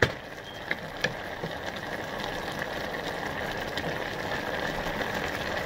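Pot of yellow squash, peppers and onions simmering in their juices: a steady fine crackling bubble, with two light clicks about a second in and a faint steady whine underneath.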